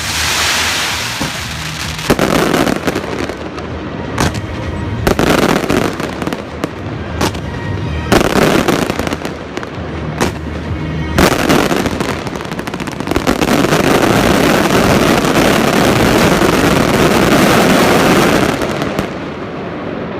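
Aerial fireworks going off in a string of sharp bursts and bangs, building into a long, dense crackling barrage about two-thirds of the way in that stops shortly before the end.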